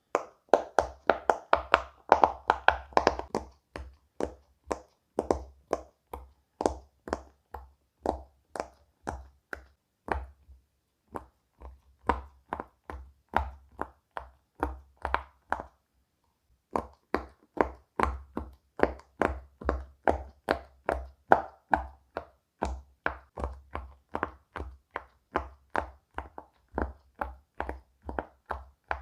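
Silicone pop-it fidget toy bubbles pressed one after another, a run of short soft pops at about two to three a second, with two brief pauses, one about a third of the way in and one just past halfway.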